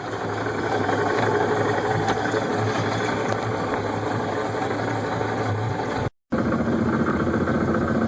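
2005 Yamaha F250 four-stroke V6 outboard running steadily at a low idle with a throaty, knocking note that the owner hears as a new fault; he later found the lower unit had failed. The sound cuts out for a moment about six seconds in, then picks up again.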